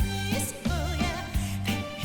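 Trot song with band accompaniment: a steady beat of bass and drums, about three hits a second, under a wavering, bending melody line.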